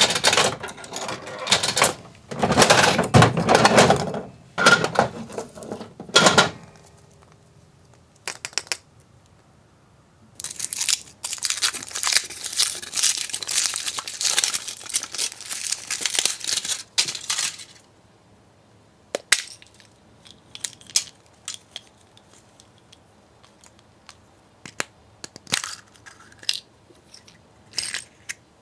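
A coin is dropped into a capsule-toy vending machine and its dial is cranked, with a burst of loud ratcheting clicks and rattling, and a capsule tumbles out. After a pause, the foil wrapper of a chocolate egg is peeled off with several seconds of steady crinkling. Then come scattered sharp plastic clicks as a plastic toy capsule is snapped open and its parts are handled.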